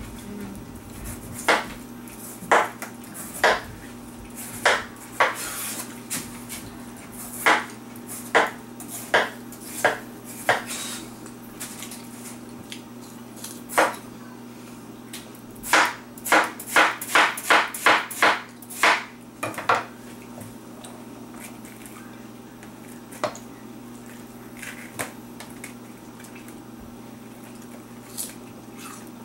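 Kitchen knife slicing through peeled watermelon and striking a wooden cutting board, one sharp stroke every second or so, then a quicker run of about ten strokes past the middle. A few lighter taps follow later.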